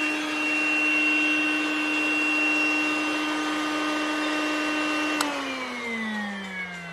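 Small vacuum motor, used to suck a clogged condensate drain clear, running with a steady whine, then switched off with a click about five seconds in, its pitch falling as the motor spins down.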